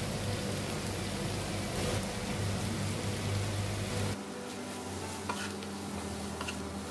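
Oyster mushroom and carrot stir-fry sizzling steadily in a nonstick wok. About four seconds in, the sound drops suddenly, and then a spatula taps and scrapes in the pan a couple of times as the chives are stirred in.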